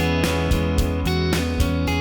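Background music: a strummed guitar track with a steady beat.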